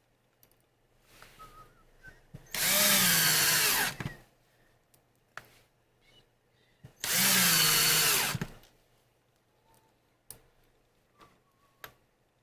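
Electric drill driving screws to fit caster wheels: two short runs of the motor, each about a second and a half, with the pitch dipping toward the end of each run. Faint clicks of handling in between.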